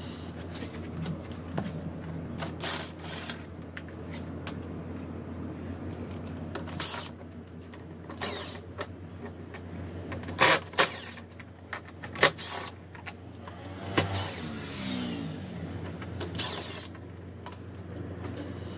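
Cordless drill-driver whirring in a series of short spurts, each under a second, as it backs screws out of a scooter's plastic floor panel. A steady low hum runs underneath.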